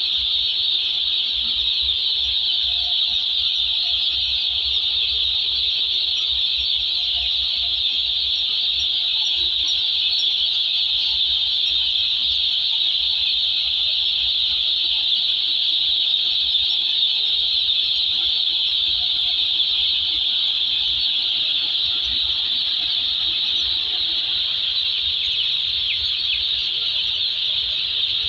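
Hundreds of day-old broiler chicks peeping all at once in their delivery crates: a steady, dense, high-pitched chorus with no let-up.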